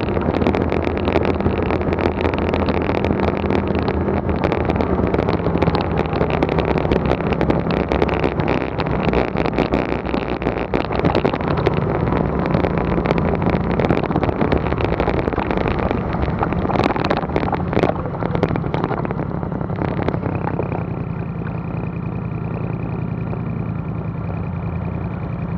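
Off-road vehicle engine running, with tyre and wind noise on a gravel road. About twenty seconds in the vehicle slows to a stop and the engine idles steadily.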